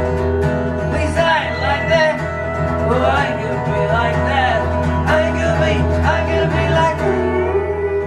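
Live country music: an acoustic guitar strumming steadily while a pedal steel guitar plays sustained notes that bend and glide in pitch over it.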